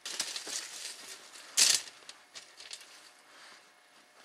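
Footsteps and rustling on leaf litter and dirt as a person walks past, with one louder short rustling noise about a second and a half in, then a few faint ticks.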